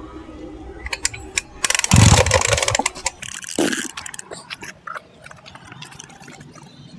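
Recoil starter of a two-stroke brush cutter pulled hard about two seconds in: the rope rasps out and the engine turns over without firing, followed by lighter rattles and knocks as the rope rewinds and the machine is handled. The cranking is part of repeated pulling meant to revive the engine after its carburettor fuel was drained.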